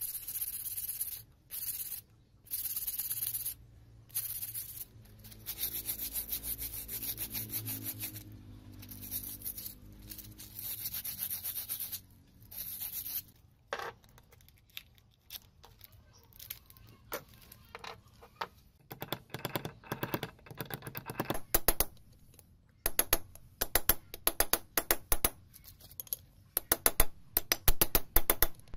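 Abrasive pad scrubbing a small metal pump part in repeated strokes about a second long, a rough, hissy rubbing. In the second half come scattered metal clicks and handling noises, and near the end a quick run of sharp metal taps and clinks as a spanner works on the motor's rotor shaft.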